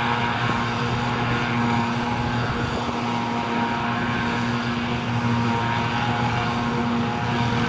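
Self-propelled forage harvester working at full load, chopping grass and blowing it into a trailer, with a tractor running alongside: a continuous, steady engine drone with a constant hum.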